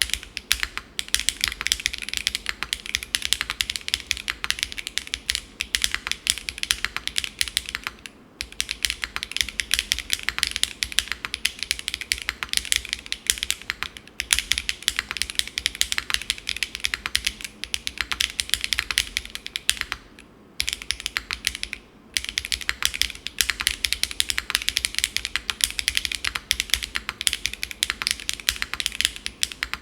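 Fast continuous typing on a custom mechanical keyboard with Keygeek Cera R2 switches and GMK Beige keycaps on an aluminium plate, tadpole-mounted with no foam. The typing pauses briefly a few times, the longest for about a second and a half around two-thirds of the way through.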